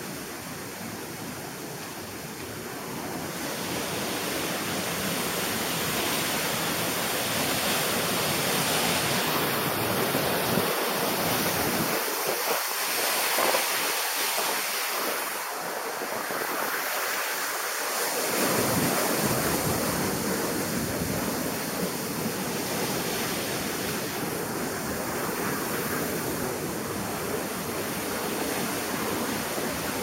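Waterfall rushing: a steady, full roar of falling water that grows louder a few seconds in.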